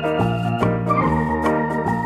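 Background instrumental music: held keyboard chords, organ-like, over a steady beat, with the chord changing about a second in.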